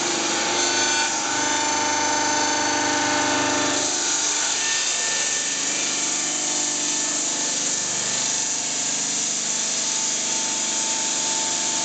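Water-cooled circular diamond blade of a stone bridge saw cutting through a stone slab: a steady grinding hiss with several held whining tones that shift slightly about four seconds in.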